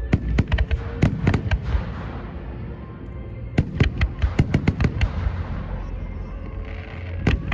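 Fireworks going off: volleys of sharp bangs and crackles, one cluster right at the start and another about three and a half seconds in, with a single bang near the end, over a steady low rumble.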